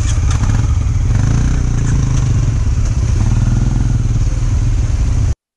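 Benelli Imperiale 400's single-cylinder engine running as the motorcycle moves off slowly in stop-and-go traffic. The sound cuts off abruptly near the end.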